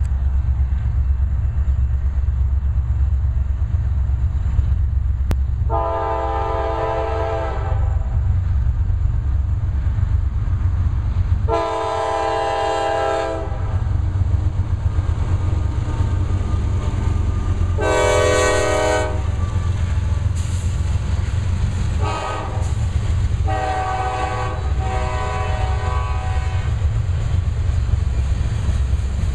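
A diesel freight locomotive, a CSX GE C40-9W leading, blowing its multi-chime air horn: two long blasts, a short one, then three more blasts close together, roughly the long-long-short-long grade-crossing signal. Under it is the steady low rumble of the locomotives and the freight cars rolling past.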